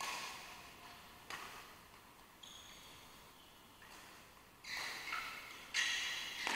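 Badminton rally: five sharp racket strikes on the shuttlecock about a second apart, each ringing out in the echoing hall, with short high squeaks between; the last two strikes are the loudest.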